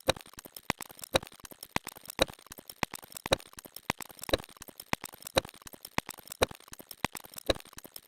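A rapid series of short, sharp clicks. Faint ones come close together, and louder ones come about twice a second.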